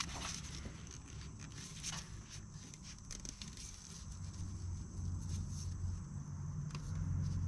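Faint rustling and light scattered clicks of a gloved hand unscrewing a Mopar spin-on oil filter by hand, already broken loose with a wrench. A low steady hum sits underneath and grows a little louder about four seconds in.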